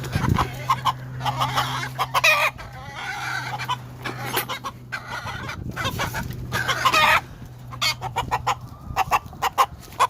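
Young Kelso gamefowl roosters (stags) clucking and calling in short bursts, with one longer call, likely a crow, a little past the middle.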